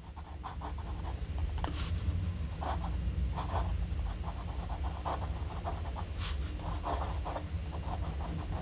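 Medium nib of a BIC fountain pen writing on Rhodia dot-pad paper: a run of short, light scratching strokes as a line of handwriting goes down. A steady low hum sits underneath.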